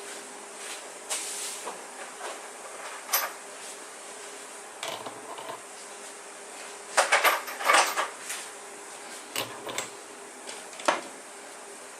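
Scattered clicks and knocks of hand tools and motor parts being handled during bearing replacement on an electric skateboard hub motor, with a denser burst of clatter about seven to eight seconds in, over a faint steady hum.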